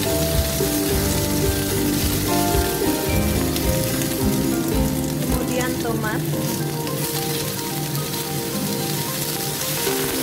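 Sliced onions and chili sizzling steadily in hot oil in a frying pan, over background music.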